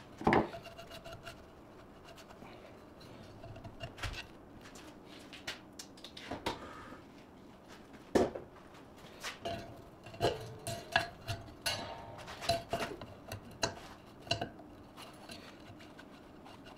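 Metal hand tools clinking and knocking at irregular moments, some clinks ringing briefly; the sharpest knock comes about eight seconds in, with quicker clinks in the second half.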